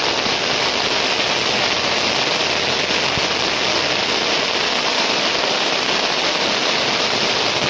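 R.R Fireworks Crackling Fountain, a ground fountain firework (anar), burning with a loud, steady hiss of sparks laced with a dense crackle.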